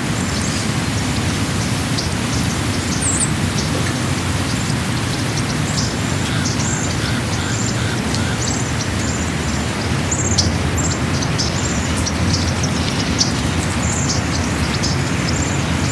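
Birds chirping in short repeated calls over a steady rushing noise.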